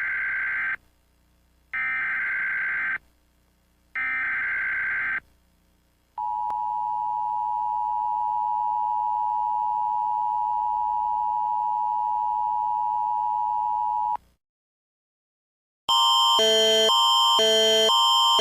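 Emergency Alert System alarm: three one-second bursts of buzzy digital header tones a second apart, then the steady two-tone attention signal held for about eight seconds. After a short silence, a louder alarm of rapidly alternating tones starts near the end.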